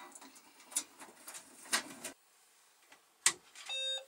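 Handling of a Microvitec Cub monitor's cabinet: light clicks, then a single sharp knock about three seconds in as the monitor is moved. Near the end comes a short, steady electronic beep.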